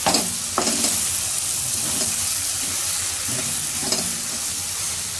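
Chopped ash gourd sizzling in a pan as it is stirred, with a spoon scraping the pan several times at irregular moments. The gourd is cooking dry in its own steam, with no water added.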